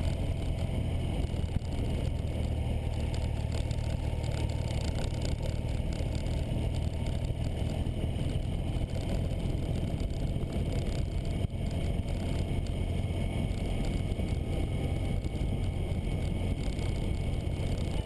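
2009 Ural Patrol sidecar motorcycle's air-cooled flat-twin engine running steadily at a constant cruising pace, with a steady haze of road and wind noise over it.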